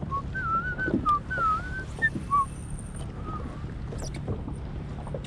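A short run of wavering whistled notes, a dozen or so in quick succession, then a faint pair about three seconds in, over a low steady rumble.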